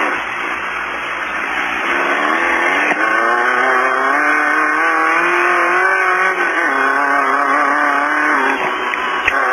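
Off-road race car's engine running hard, heard from inside the car, its pitch climbing slowly for several seconds, then dropping about two-thirds of the way through and holding steady.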